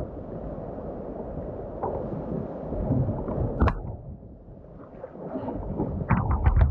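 Surf breaking and washing up a beach in a steady rushing noise, with a sharp knock a little past halfway and a run of knocks near the end.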